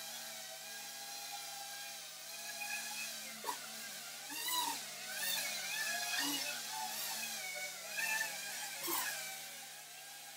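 Small FPV quadcopter's electric motors and propellers whining, the pitch rising and falling with the throttle, with several brief louder surges.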